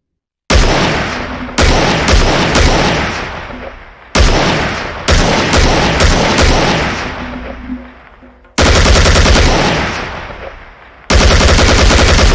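AK-47 assault rifle firing, loud with a long echoing tail after each shot. It fires two strings of spaced shots in twos and threes, then two rapid full-auto bursts of about a second each near the end.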